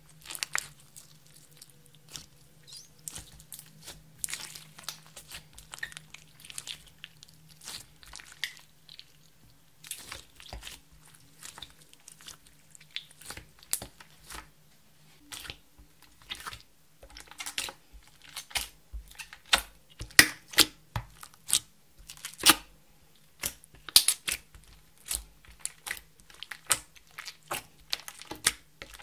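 Clear slime being kneaded and pressed by hand, giving sharp wet pops and crackles. They come sparsely at first and grow denser and louder in the second half.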